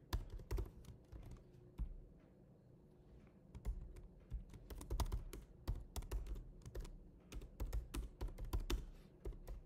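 Typing on a computer keyboard: a run of quick, irregular key clicks that thin out briefly about two seconds in, then pick up again.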